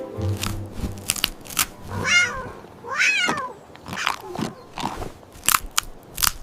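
Cat chewing hard candy with sharp, crunchy bites, and meowing twice about a second apart near the middle.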